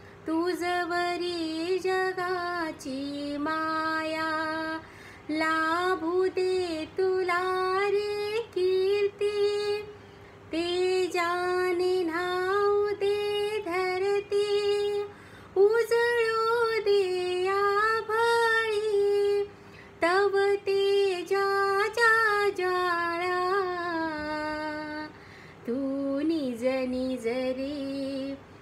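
A woman singing a Marathi lullaby without accompaniment, in long held, gliding phrases of a few seconds each, with short breaths between them.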